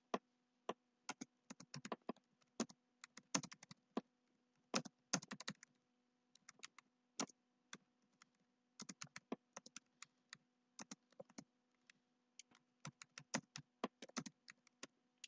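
Computer keyboard typing: irregular keystrokes in short bursts with brief pauses, over a faint steady hum.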